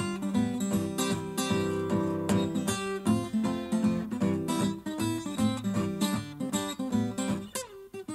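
Background music: strummed acoustic guitar with a steady rhythm, dipping briefly near the end.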